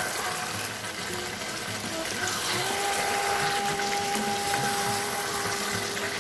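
Muri ghonto, fish head and rice finished with ghee, sizzling in the pan on a gas stove as a steady hiss. A steady low hum joins about two and a half seconds in.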